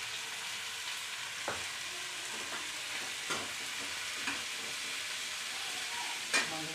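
Chopped onions frying in oil in a stainless steel kadhai, a steady sizzle as they brown, with the metal ladle scraping the pan a few times as they are stirred.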